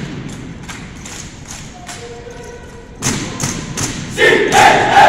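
Wooden drill rifles clacking and knocking as a drill team handles them in unison, with a louder clatter about three seconds in as the rifles come down and the butts strike the concrete floor, echoing in a large hall. Near the end, voices call out together.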